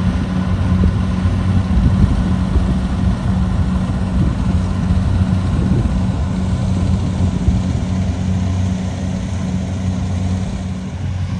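Rice combine harvester's engine running with a steady, even drone while it cuts the crop. It eases off slightly near the end.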